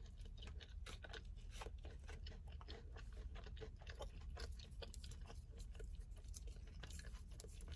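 A person chewing a mouthful of glazed honey chicken, with quick, faint, wet smacking clicks of the lips and mouth, many to the second.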